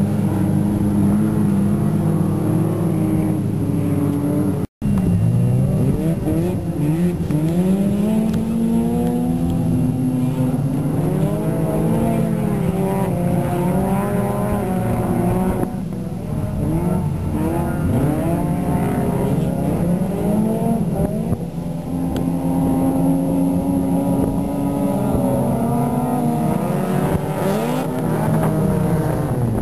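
Race car engines revving hard, their pitch repeatedly climbing and dropping with gear changes, several cars at once overlapping as they pass. The sound cuts out for an instant about five seconds in.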